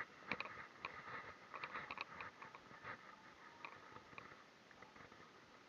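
Faint, irregular mechanical clicks and ticks, densest in the first two seconds and thinning out after that.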